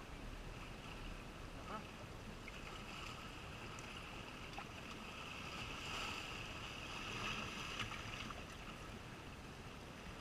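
Steady seaside background of water and wind on a calm shore, with a faint high hum that swells through the middle and eases near the end.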